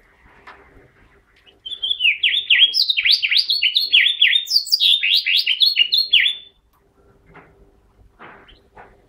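Male house finch singing one fast, warbling song phrase of quick down-slurred notes, starting about a second and a half in and lasting about five seconds.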